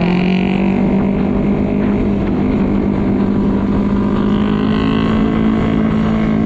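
Honda PCX150 scooter's single-cylinder engine droning at a steady cruise, its pitch holding nearly level, with road and wind noise underneath.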